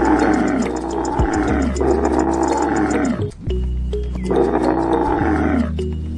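Lion roar sound effect, three long roars that fall in pitch as they end, the last after a short pause, over background music.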